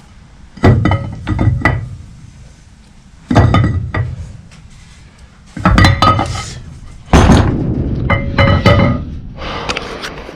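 Impact wrench hammering in four short bursts, tightening the flywheel bolts on a Ford 4.6L V8 crankshaft, with a metallic ring.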